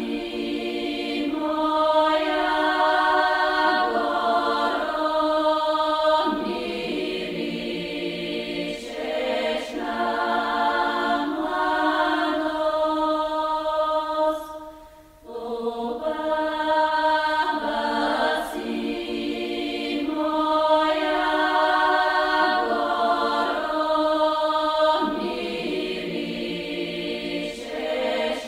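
Background music of held, choir-like chords that change every couple of seconds, with a brief break about halfway through.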